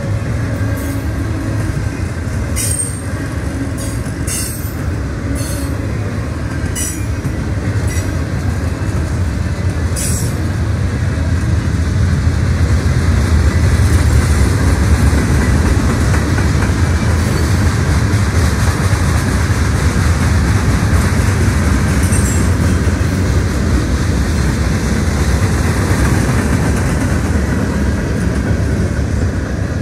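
Freight cars of a long mixed freight train rolling past close by: a steady low rumble of wheels on rail that grows a little louder about halfway through, with several short sharp wheel sounds over the first ten seconds.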